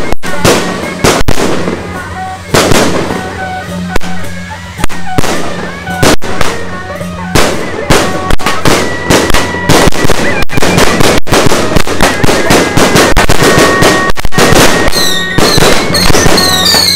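Firecrackers and fireworks going off in dense, irregular bangs, quieter for a few seconds about two seconds in and then thickening again. A melody of short stepped tones sounds beneath the bangs, and a few falling whistles come near the end.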